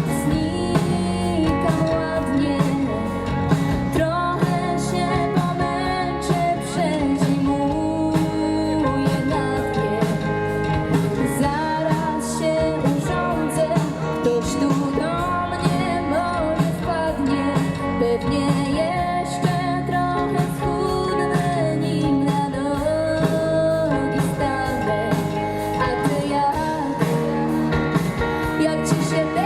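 A rock band playing live, with guitar and drums and a sung melody over them.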